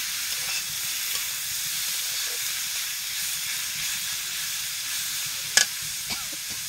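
Leafy greens sizzling and steaming as they are stir-fried with a metal spatula in a black metal wok, a steady hiss. A single sharp knock sounds about five and a half seconds in.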